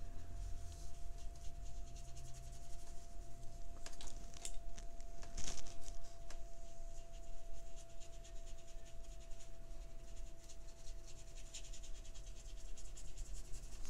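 Wet paintbrush bristles scrubbing and stroking across paper while blending watercolour: faint, irregular scratchy strokes with a few sharper ticks.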